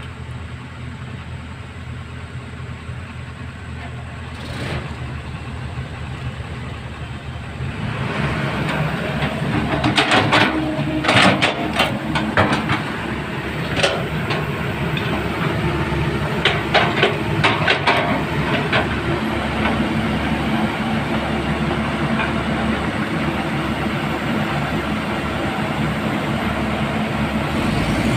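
A heavy machine's diesel engine runs steadily and grows louder about a third of the way in. A series of sharp metal clanks and knocks comes through the middle.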